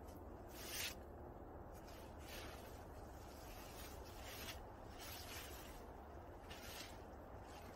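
Sleeping bag fabric rustling and swishing as it is spread out and pulled into place by hand: several short swishes, the loudest about a second in.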